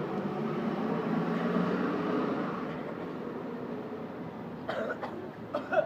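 Engine of a passing motor vehicle: a steady drone that grows to its loudest about a second and a half in, then fades away.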